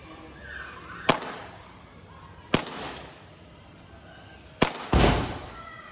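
Standard Fireworks 'Happy Dreams' consumer firework going off: three sharp bangs one to two seconds apart, then a louder, longer boom with rumble near the end.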